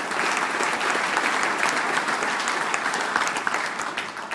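Audience applauding: a dense run of hand claps that eases off near the end.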